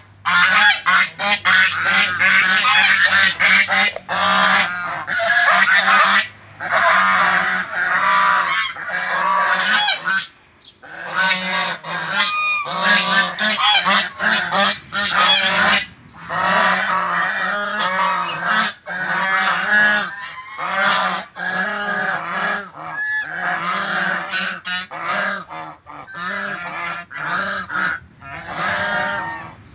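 A flock of domestic geese honking, many loud calls overlapping almost without pause, with two brief lulls.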